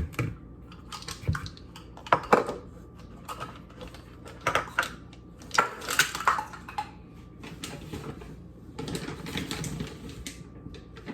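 A measuring cup tapping, knocking and scraping against a bowl in irregular clatters as flour is scooped and tipped in.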